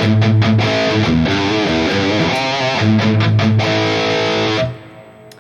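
High-gain distorted electric guitar played through the NuX MG-30 modeler's Marshall DSL amp model, a riff of heavy chords over low sustained notes. It stops about four and a half seconds in and rings out.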